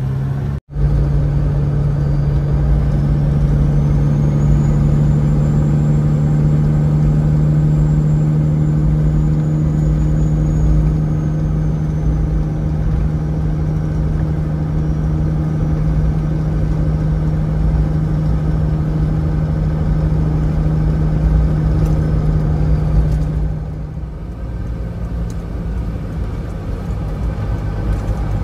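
Diesel engine of a 1998 Peterbilt 379 semi truck heard from inside the cab while driving: a loud, steady drone with a faint high whine above it. About 23 seconds in, the drone drops away and the truck runs quieter.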